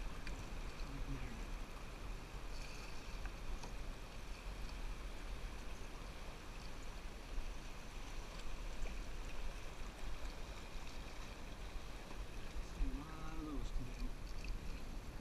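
Moving river water washing and gurgling around a canoe's hull, an even rushing sound, over a steady low rumble.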